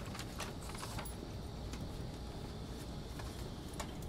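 Steady low hum inside an N700S Shinkansen car, with faint scattered clicks and taps.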